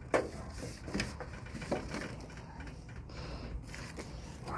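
A sharp knock just after the start, then a few scattered clicks and rustles of handling, over a steady low wind rumble on the microphone.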